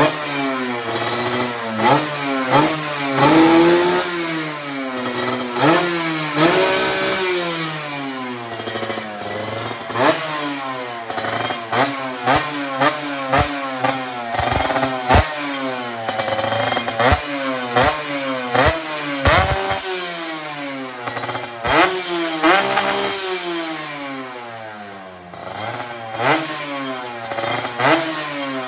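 Kawasaki Ninja RR motorcycle with a YY Pang aftermarket exhaust, revved again and again on the stand by hand. Each quick throttle blip rises and falls in pitch about once every second or so, with sharp cracks from the exhaust between the revs.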